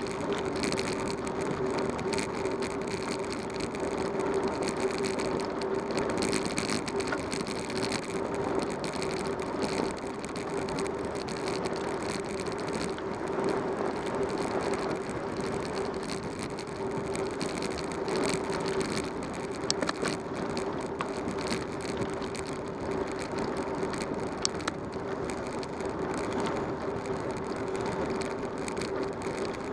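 A bicycle rolling along a paved road, heard from a camera mounted on the bike: steady rolling noise with a steady hum and a few light clicks and rattles.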